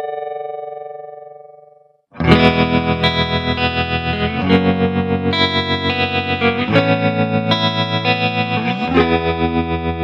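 Electric guitar played through a Mooer Trelicopter optical tremolo pedal. A chord rings out and fades away, then chords are strummed with the volume pulsing evenly about four times a second, the chord changing about every two seconds.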